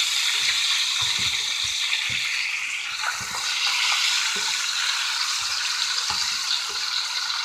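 Flour-dredged chicken thighs frying in hot oil in a cast iron skillet: a steady sizzle with scattered small pops.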